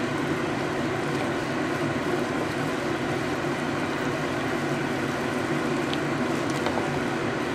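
Steady fan noise: an even hum and hiss that does not change.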